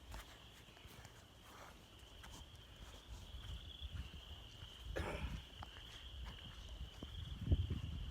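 A steady, high-pitched chorus of distant calling animals, faint and unbroken, with a few low thumps and rustles about five seconds in and near the end.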